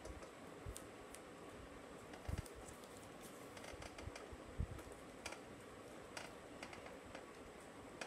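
Faint scattered clicks and taps of hands handling a small battery, buzzer and plastic-clip switch while pressing double-sided tape into place.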